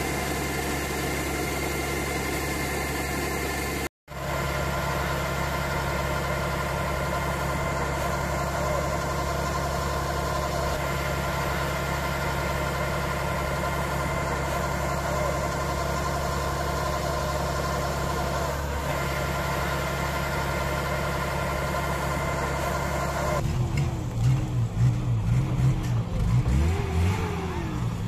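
Engine-driven rice threshing machine running steadily with an even mechanical hum, broken once by a short gap about four seconds in. For the last few seconds, louder, uneven low rumbling takes over.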